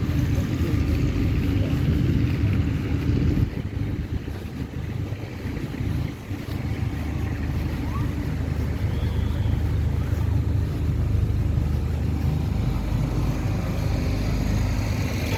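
A low engine running steadily, the sound dipping a few seconds in and then building back up.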